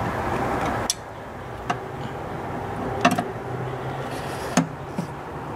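A long metal tool clicking and tapping against metal parts in the engine bay as it is worked at a small part, about five sharp clicks spread over the few seconds, a few with a short metallic ring, over a low steady background hum.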